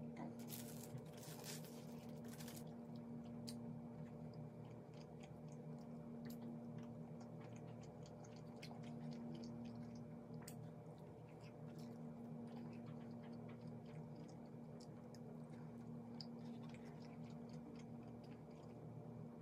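Faint chewing of teriyaki chicken and broccoli, with a fork clicking and scraping in a takeout bowl, the clicks most frequent in the first few seconds. A steady low hum runs underneath.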